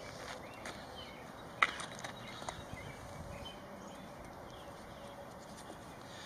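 Footsteps and light taps on a concrete slab as a flexible urethane concrete stamp is set down and slid into place, with one sharp click about a second and a half in, over steady outdoor background noise.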